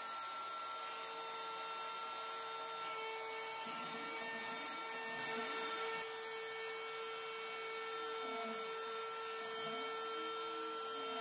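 Belt-driven CNC router cutting end-grain wood: the spindle runs with a steady whine over a hiss of cutting, while lower motor tones slide up and down as the machine traces the curved outline. This is the first, half-depth pass of an inlay plug cut.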